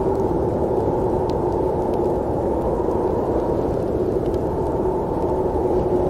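Steady low snowstorm wind, an even rushing noise with no gusts rising or falling.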